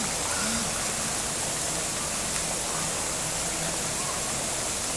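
Fountain water jets arcing and spraying into a shallow pool: a steady rush of falling, splashing water.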